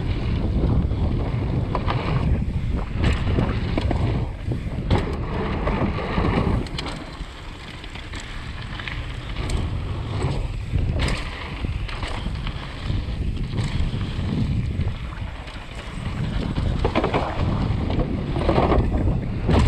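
Wind buffeting a GoPro camera's microphone at riding speed, over the rumble of a Canyon Torque mountain bike's tyres on dirt and wooden boardwalk planks. Repeated rattles and clacks come from the bike running over bumps and plank edges.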